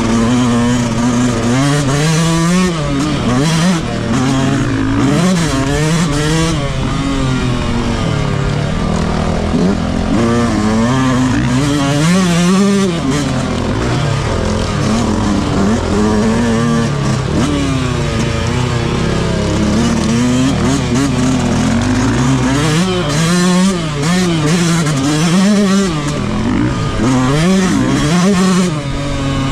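Yamaha YZ125 two-stroke dirt bike engine with its stock exhaust, revving hard and dropping off again and again as it is ridden off-road, the pitch sweeping up and down every second or two.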